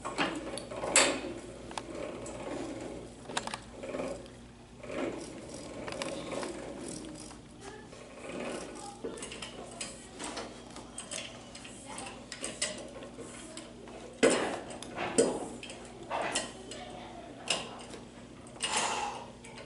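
Leg split stretching machine being worked open by hand: irregular mechanical clicking and ratcheting from its wheel-and-bar spreading mechanism, with a few louder clunks.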